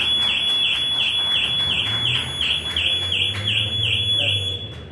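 A high electronic warbling tone, alarm-like, that dips and returns about three times a second, cutting off shortly before the end.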